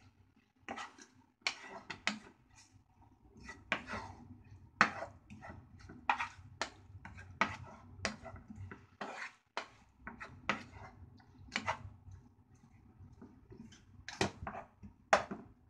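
Wooden spatula knocking and scraping against a frying pan in irregular strokes, stir-frying yacon and carrot kinpira to cook off the last of the liquid.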